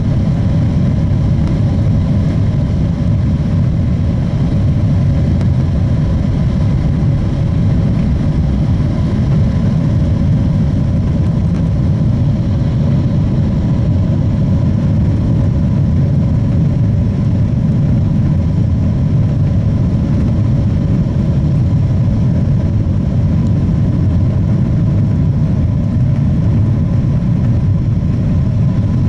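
Boeing 777-200ER's GE90 jet engines at takeoff thrust, heard from inside the cabin: a steady, loud, deep rumble with a faint steady whine, through the takeoff roll, liftoff and climb-out.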